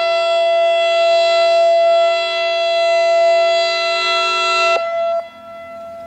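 ASC I-Force electronic siren sounding a loud, steady electronic tone made of several pitches at once, between repeats of its recorded voice test message. The tone cuts off about five seconds in.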